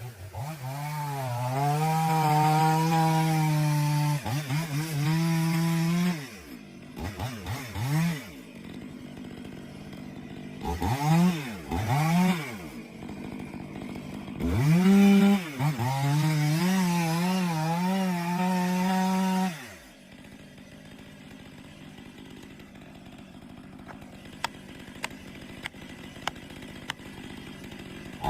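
New Stihl chainsaw's two-stroke engine revved to full throttle in long runs, dropping back with short blips of the throttle in between. For the last eight seconds or so it goes much quieter, with only a few light clicks.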